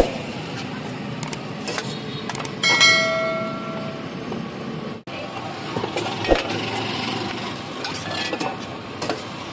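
Clatter of metal tins, lids and utensils at a street-food stall over steady background noise, with a metallic ring about three seconds in that dies away over a second or so, and a sharp knock about six seconds in.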